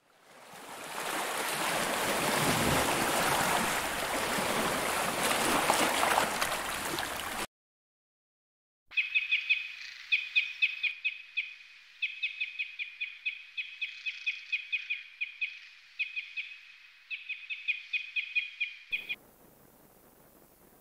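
Underwater rushing noise. After a short silence it gives way to quick, high chirps repeated in runs of a few seconds.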